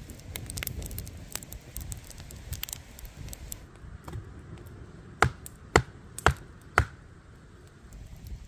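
A few seconds of light crackling and clicks, then four sharp knocks about half a second apart.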